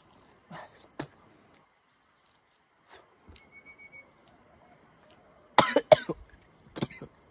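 A man coughing and spluttering in a few sharp bursts a little past halfway, two loud ones then two smaller, after biting into a sour, unripe green orange.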